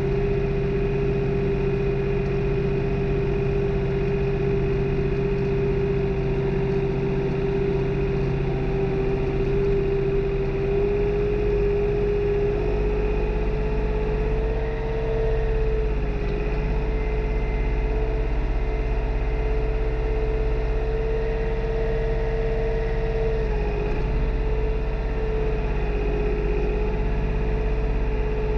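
New Holland tractor's diesel engine running steadily while working a field during tillage. It makes a constant drone with a strong hum whose pitch creeps up slightly about a third of the way in and dips briefly twice.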